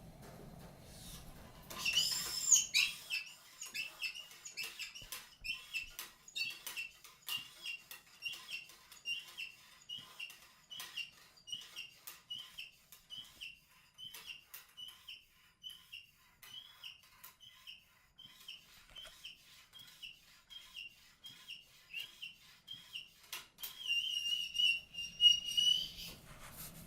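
Oiled wool felt cleaning pad on a cleaning rod being worked through a shotgun barrel, squeaking against the bore wall. Short high squeaks repeat about one and a half times a second after a scrape near the start, and a longer, louder squeak comes near the end.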